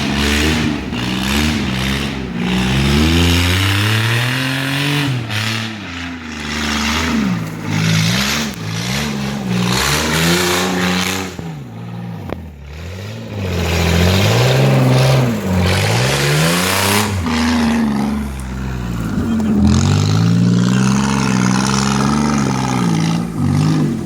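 Off-road vehicle engine revving up and down over and over, its pitch rising and falling every second or two, with a brief lull about twelve seconds in.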